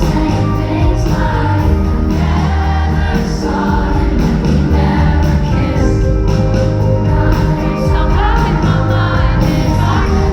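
Live pop music played loud through a concert sound system: a band with a steady heavy bass and sung vocals that sound like several voices together.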